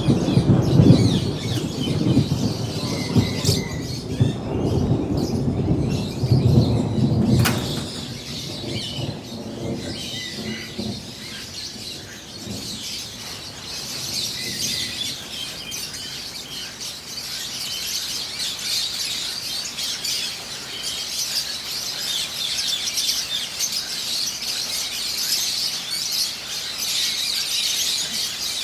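A flock of lovebirds chattering, with dense high chirps that grow louder about halfway through. For the first several seconds a low rumbling noise lies under the birds, ending in one sharp knock.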